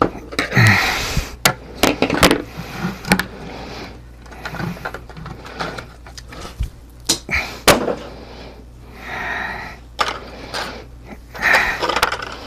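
Rubbing and scuffing on a 3D-printed plastic helmet, broken by scattered small clicks and knocks as it is worked on by hand.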